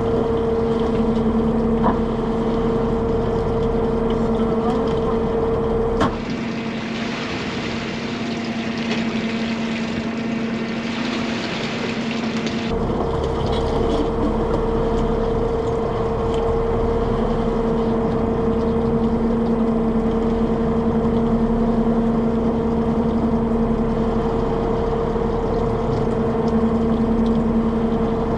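Small fishing boat's engine running steadily with a constant hum. About six seconds in, the hum gives way abruptly to a hiss for around six seconds, then comes back.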